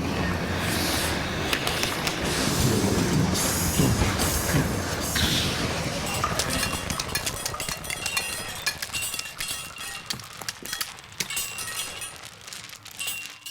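Earthquake sound effect made largely from human voices: a dense, low rumble for the first half, giving way to a rapid clatter of small cracks and clicks that thins out and fades.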